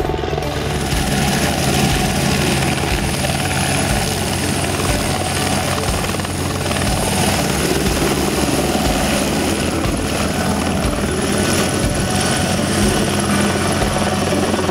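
AS350 Écureuil light helicopter flying close and hovering low on a long cargo line: steady loud rotor chop with a steady high turbine whine.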